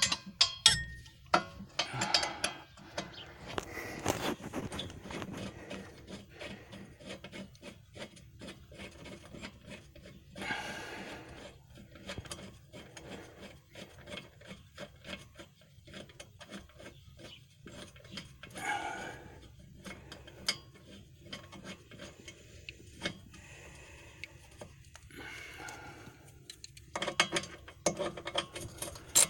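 A 1/2-inch drive ratchet wrench clicking in runs of rapid strokes, with pauses between, as it tightens the nut on a rear air shock mount.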